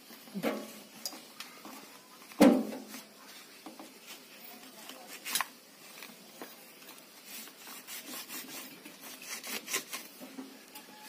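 Scattered clinks and knocks of small metal tools and parts being handled, with one loud knock about two and a half seconds in, a few lighter ones after it, and a quick run of light clicks near the end.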